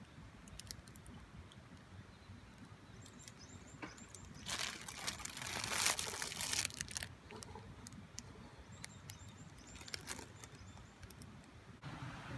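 Quiet outdoor ambience with faint, short high bird chirps and scattered light ticks, and a few seconds of rustling noise about halfway through.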